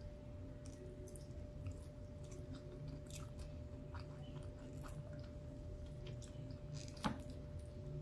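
Close-up mouth sounds of someone chewing a mouthful of rice and beans: many small soft wet clicks, with one sharper click about seven seconds in. A faint steady hum runs underneath.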